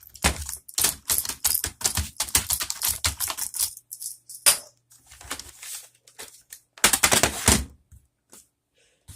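Keys of a membrane computer keyboard being typed on in quick runs of clicks. There is a long run at the start, a few scattered presses, and a second short run about seven seconds in. This tests the keyboard after reassembly.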